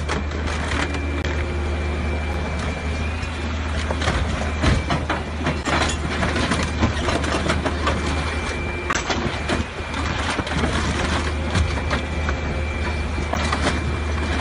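The diesel engine of a scrapyard grab machine runs steadily while its claw crushes a white Ferrari 458 Spider. The car's bodywork gives way in repeated cracks and crunches.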